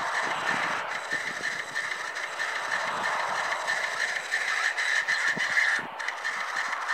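Industrial rail-yard noise: a steady hiss with a high, wavering whine and scattered low knocks and rattles.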